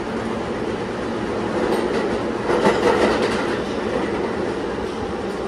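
Bombardier R143 subway car running along the track, heard at the gangway between cars. A steady rumble of wheels and running gear, with a quick run of wheel clicks over the rail joints a little over two seconds in.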